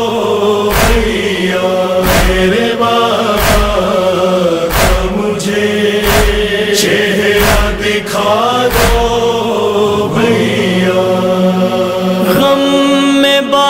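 A crowd of male mourners chanting a nauha, an Urdu lament, in unison, with a strong regular thud about every second and a half from chest-beating (matam) in time with the chant.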